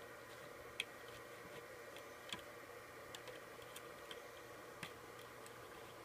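Faint, irregular small clicks and ticks of a plastic crochet hook working rubber bands on the pegs of a plastic rubber-band loom.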